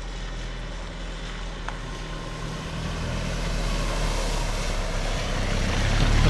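Cars driving through shallow water from a burst water main, their tyres hissing and throwing up spray over the engine hum. The sound swells about four seconds in as a car splashes past and grows louder again near the end as another passes close by.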